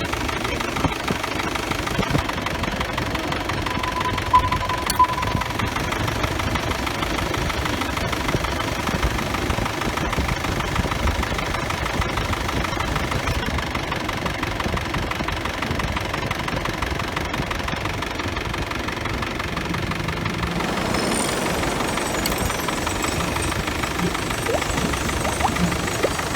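Isuzu D-Max pickup engine idling steadily with the air-conditioning compressor engaged and running off the engine belt, now working after the repair.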